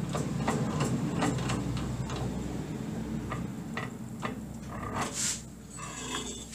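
Metal clicks and knocks as a workpiece is shifted and set by hand in a drill-press vise, over a low steady hum that is strongest in the first half.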